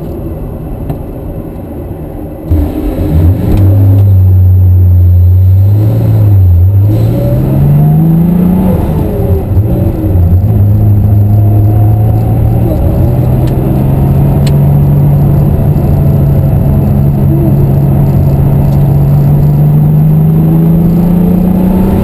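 The 1988 RUF CTR Yellow Bird's twin-turbo flat-six, heard from inside the cabin as the car pulls away. It runs quietly at low revs, gets suddenly loud about two and a half seconds in and holds steady revs, then rises in pitch, drops back about nine seconds in, and climbs slowly again toward the end.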